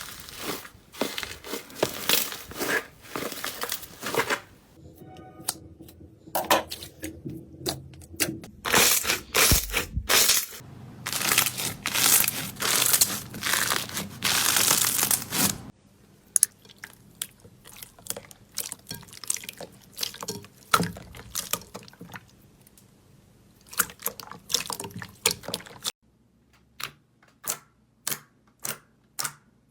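Slime being squeezed, pressed and stretched by hand, giving dense crackling and crunching, with the texture changing abruptly a few times. Near the end comes a run of sharp pops, about two a second.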